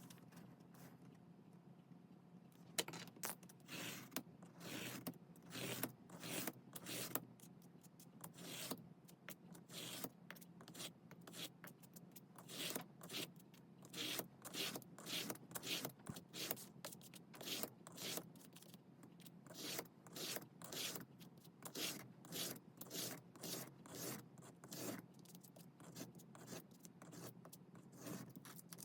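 Hand paper-crafting sounds: after a quiet start, a long run of short scraping and rubbing strokes on paper, about one or two a second.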